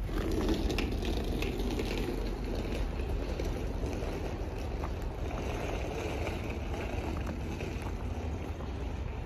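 Wind rumbling on the microphone over a steady outdoor hum, with boots crunching through wet snow in the first couple of seconds.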